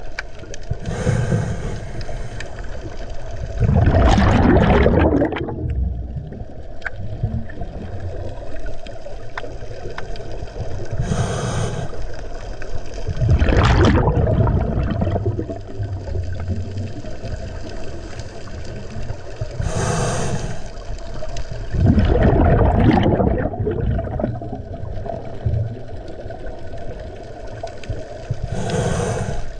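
Scuba diver breathing through a regulator underwater: a short hiss on each inhale, then a louder, longer rush of exhaled bubbles about two to three seconds later. The cycle repeats every eight to nine seconds, three full breaths and a fourth inhale, over a constant low background hum.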